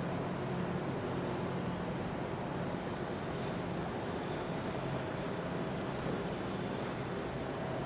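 Steady machinery noise of a car assembly plant, with a low hum underneath and brief faint high hisses about three and a half and seven seconds in.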